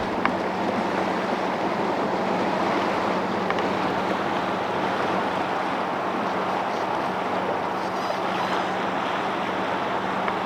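Steady rush of water and wind on a sailboat under way, with a constant low hum underneath.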